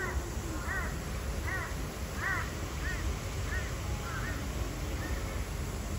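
A crow cawing repeatedly, about one caw every three quarters of a second, growing fainter near the end, over a steady low background rumble.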